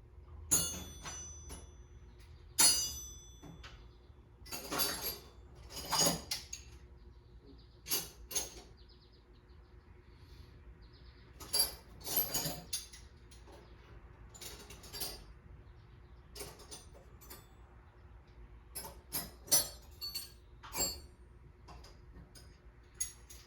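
Metal hand tools clinking and clanking as they are picked up and set down, a couple of dozen sharp knocks at irregular spacing, some ringing briefly.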